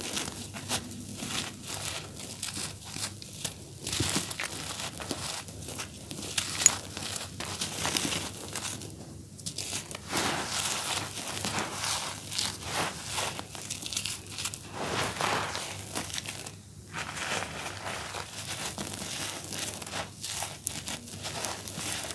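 Dry, grainy charcoal cakes being crumbled in bare hands, grit and powder falling onto a floor layer of the same dust: a dense run of small gritty crunches, with short pauses about nine and seventeen seconds in.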